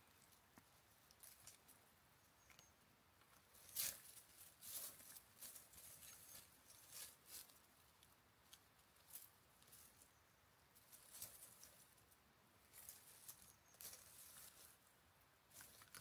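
Faint rustling and crackling of dry leaves and twigs as a cat paws through leaf litter, in scattered short rustles, the loudest about four seconds in.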